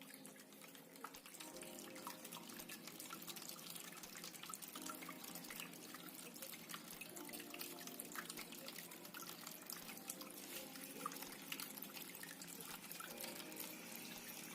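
Water from a small tabletop waterfall fountain trickling and dripping into its basin: a steady, quiet splashing made of many small, irregular drips.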